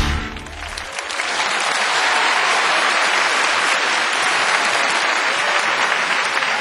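Music with a beat breaks off at the start. About a second in, a crowd's applause builds and then holds steady.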